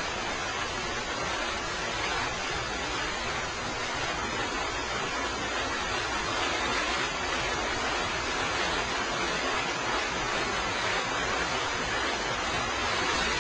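Steady, even hiss of a TIG welding arc burning without a break.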